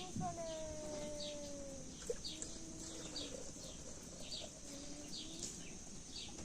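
Small bird chirping over and over, short high falling notes about twice a second. In the first two seconds a long, slowly falling call sounds over it, with fainter pitched tones after.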